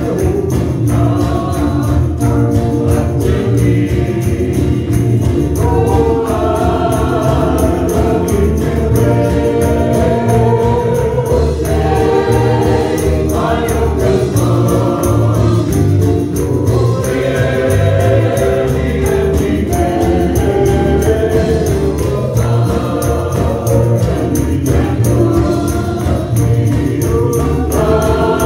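Gospel music: a choir singing a hymn with instrumental accompaniment and a steady beat.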